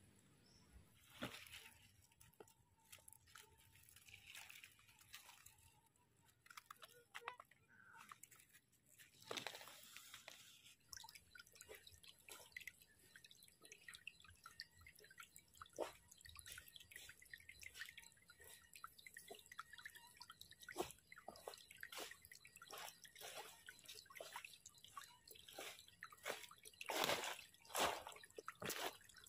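Footsteps in rubber boots crunching over dry leaf litter and stones, faint at first and growing louder near the end as the walker comes close.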